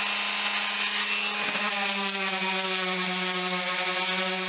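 DeWalt random orbital sander running steadily on a bare hardwood tabletop with 120-grit paper. It makes a constant whine whose pitch sags slightly about a second and a half in.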